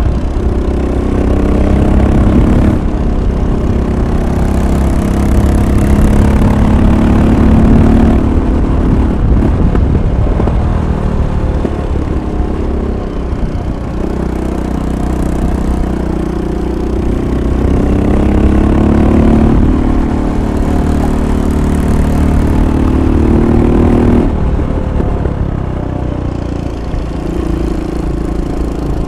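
Royal Enfield Bullet 500's single-cylinder four-stroke engine on the move, pulling up through the revs several times, each rise in pitch ending in a drop as it shifts or eases off, with steadier, lower-revving stretches between.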